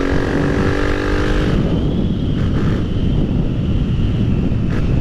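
Honda XR250 Tornado's single-cylinder engine, fitted with a Belparts exhaust, running at a steady note. About a second and a half in, the note gives way to a dense rumble mixed with wind rush on the helmet microphone.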